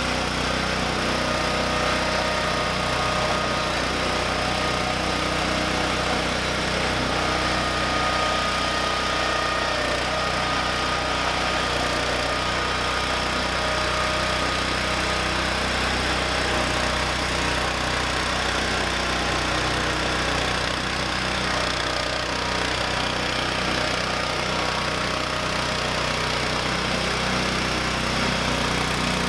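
MTD 990 lawn tractor engine running steadily, with a thin steady whine over it during the first half.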